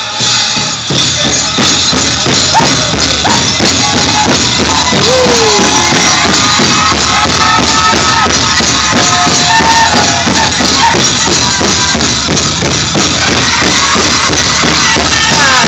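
Powwow drum group singing a chicken dance contest song over a fast, steady drumbeat, with sliding, high-pitched voices and the jingling of bells on the dancers' regalia.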